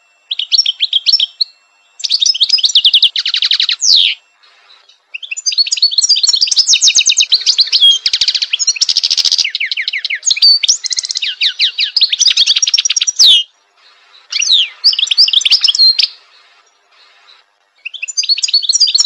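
European goldfinch singing: fast twittering phrases of rapid high notes and trills lasting a few seconds each, broken by short pauses, with the longest run in the middle.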